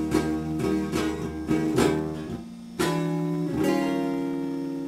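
Red Telecaster-style electric guitar playing a slow blues phrase of single plucked notes, then two chords struck about three and three and a half seconds in and left to ring.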